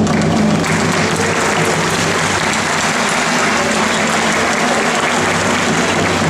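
Audience applauding steadily as a live dance number ends, with the band's last notes fading out about half a second in.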